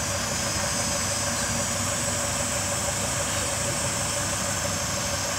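Excavator engine running steadily, an even hum with no change in speed.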